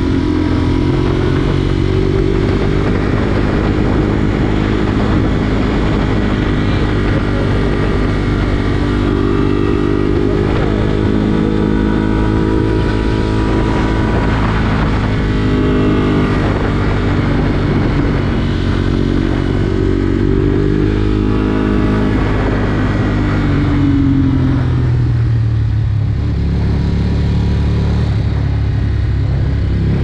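Motorcycle engine running under way, its pitch sliding down and back up with the throttle, over a continuous rush of road and wind noise.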